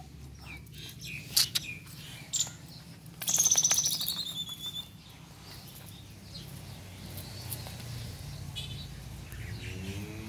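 A bird's high, fast trilled call falling in pitch, about three seconds in and lasting over a second. Around it are scattered light clicks and a steady low hum.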